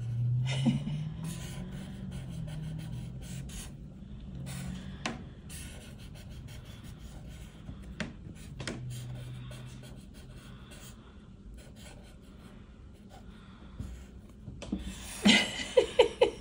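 Sharpie fine-point marker scratching across paper in short irregular strokes as a drawing is inked, with a low wavering sound underneath in places. A voice starts near the end.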